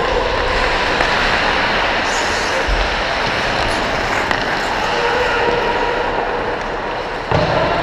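Steady rushing noise of ice skating heard on a body-worn action camera: skate blades carving the ice and air rushing over the microphone as the wearer skates. A louder, lower bump comes near the end.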